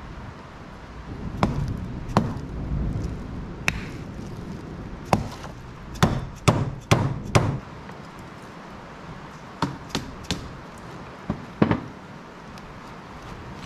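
Metal hand tools clinking and knocking against metal in irregular sharp strikes, with a quick run of four strikes about six to seven and a half seconds in.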